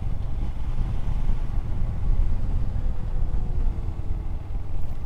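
Royal Enfield Himalayan's 411 cc single-cylinder engine running steadily at road speed. It is heard from a camera on the rider, largely buried under a deep, constant rumble of wind buffeting the microphone.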